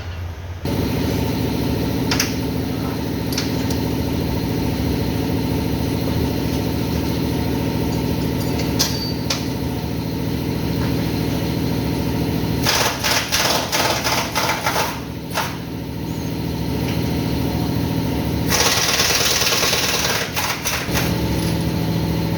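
Workshop machinery: a motor running steadily, joined about halfway through by a few seconds of rapid rattling hammering, and near the end by a loud hiss lasting a couple of seconds.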